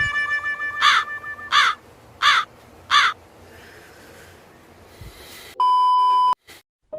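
A crow cawing four times in quick succession, about 0.7 s apart, of the kind used as a comic 'awkward silence' sound effect. Near the end a loud steady electronic beep lasts under a second and cuts off sharply.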